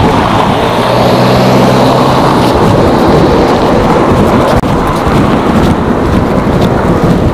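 A car passing close by on the road, its engine and tyre noise swelling about a second in, with wind rumbling on the microphone.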